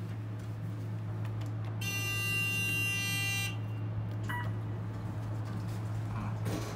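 An electronic buzzer in an Otis elevator cab sounds one steady tone for about a second and a half, then gives a short beep about a second later. A steady low hum runs underneath.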